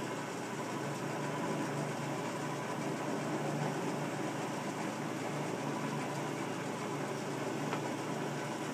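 South Bend engine lathe running steadily under power: its electric motor and gear train give an even mechanical hum.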